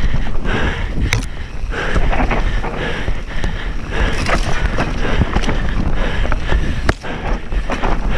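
Mountain bike descending a dirt trail at speed: wind buffeting the microphone over the tyres rolling on dirt, with frequent short clicks and knocks as the bike rattles over bumps.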